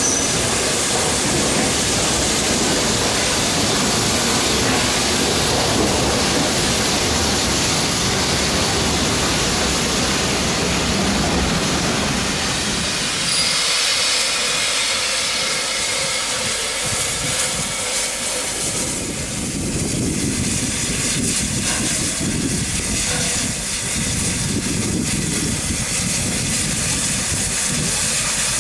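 Steam-hauled passenger train rolling past on the rails with a steady rumble, behind Peppercorn A1 Pacific steam locomotive No. 60163 Tornado. About 13 s in the rumble stops, leaving the standing locomotive hissing steam from around its cylinders.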